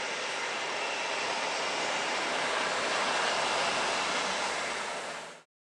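Helibrás AS-350 B3 Esquilo helicopter running on the ground: its turboshaft engine and turning rotors make a steady rush with a faint whine, which fades out quickly near the end.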